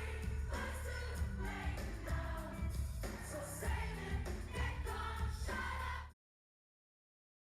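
Pop music with singing over a heavy, steady bass, cutting off abruptly about six seconds in, followed by complete silence.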